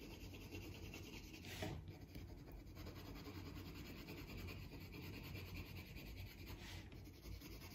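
Colored pencil shading on paper: a faint, steady scratching of rapid small strokes, with a slightly louder scrape about a second and a half in and again near the end.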